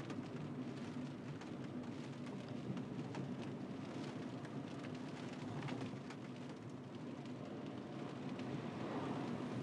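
Rain on a moving car: many small scattered drop ticks over a steady low hum of road and engine noise.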